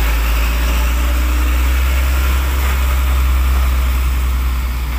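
Loaded cargo truck's engine running as the truck drives slowly past close by: a loud, deep, steady drone that starts to fade near the end.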